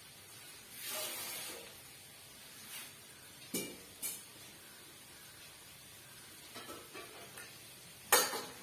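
A metal teaspoon scooping coriander powder and tipping it into a bowl: a soft scrape about a second in, a couple of sharp clicks of the spoon against the container a few seconds in, and a louder clatter near the end.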